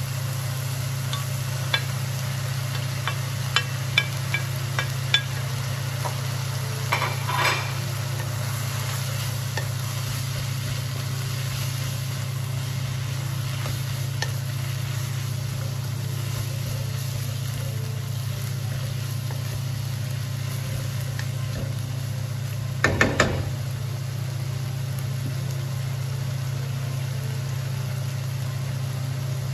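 Pork, carrots and cabbage sizzling in a nonstick wok as a wooden spatula stirs them, with a few sharp taps on the pan in the first five seconds and a cluster of louder knocks about 23 seconds in. A steady low hum runs underneath.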